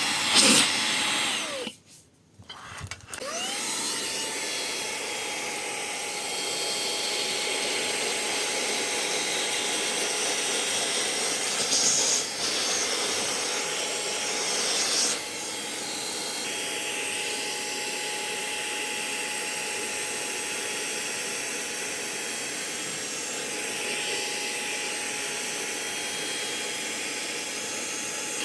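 Xiaomi Mini cordless handheld vacuum cleaner switched off, its motor winding down with a falling whine, silent for about a second, then spinning back up and running steadily with a whine over rushing air. The sound shifts and drops slightly about halfway through.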